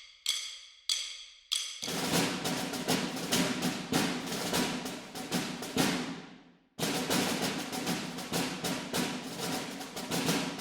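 Music: four short ringing struck notes, then fast drum-like percussion in two long runs broken by a brief gap past the middle.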